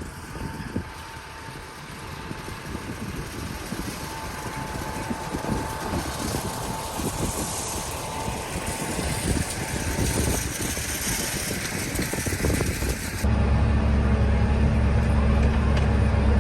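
Farm tractor working a hay field, its engine running under a rough, wind-like rush with a faint steady whine. About thirteen seconds in, the sound cuts abruptly to a louder, steady low engine drone.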